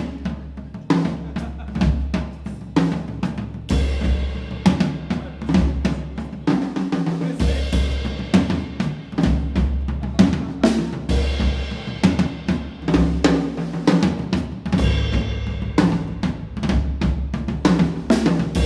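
A live rock band playing an instrumental passage: a drum kit with snare, kick and hi-hat keeping a steady beat, over low sustained bass notes that change every second or two.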